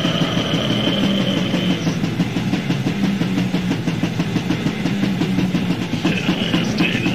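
Raw, lo-fi death/black metal demo recording: fast, pounding drums under heavily distorted guitars. A high held note rings over it and stops about two seconds in.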